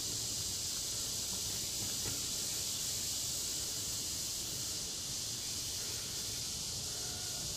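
A steady, high-pitched hiss, unchanging throughout, over a faint low rumble.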